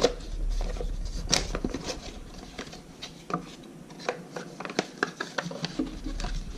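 Cardboard and plastic packaging handled as accessories are taken out of a box: scattered light clicks, taps and rustling.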